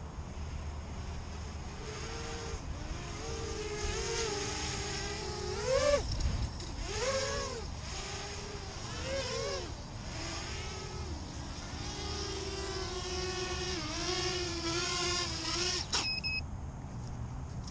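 Birdbone Helium 210 quadcopter's small motors whining as it flies, the pitch rising and falling in several surges with the throttle. About two seconds from the end the whine cuts off suddenly as the quad sets down, followed by two short high electronic beeps.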